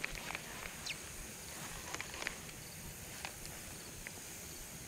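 Faint outdoor background with a few scattered small clicks from hands working a baitcasting reel.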